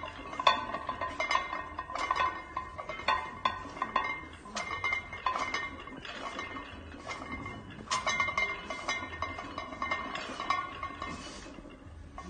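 Cast iron weight plates clinking and rattling on a loaded barbell during bench press reps: many sharp, irregular metallic clinks, each with a brief ring.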